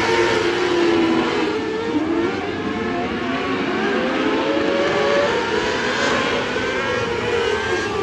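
A field of small open-wheel dirt-track race cars running around a clay oval, several engines at high revs at once, their pitches rising and falling as the cars work through the turns and pass by.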